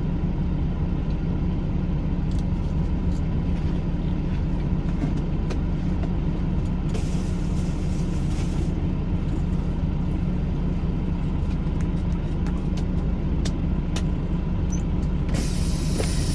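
Semi-truck engine running steadily, a constant low drone, with a short burst of hiss about seven seconds in and another hiss rising near the end.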